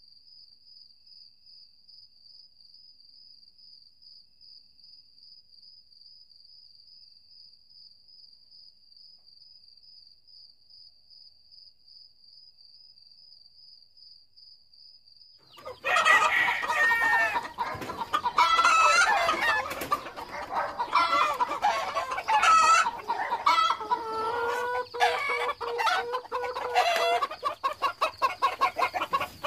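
A faint, steady high-pitched tone, then about halfway through a sudden loud commotion of chickens squawking and cackling in alarm, with a rooster crowing near the end.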